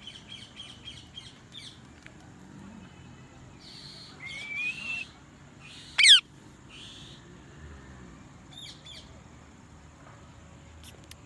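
Green parrot calling: a quick run of high chirps at the start, harsh calls and a rising whistle a few seconds in, then one loud, sharp downward call about six seconds in, the loudest of the lot, followed by a few more short calls.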